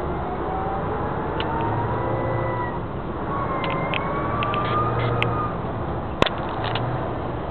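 Cab noise of a heavy vehicle driving in city traffic: a steady engine hum under road noise, with thin tones that slowly rise and fall. There are a few light ticks and one sharp click about six seconds in.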